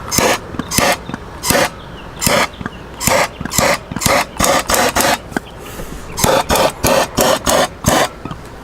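About fifteen short scraping, rubbing noises at uneven spacing, from hands working the light bar's wiring as it is heat-shrunk and wrapped in tubing.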